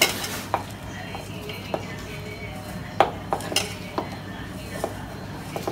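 Hand mixing grated corn and gram flour in a steel bowl: scattered light metal clicks and clinks against the bowl, the sharpest about three seconds in, over a steady low hum.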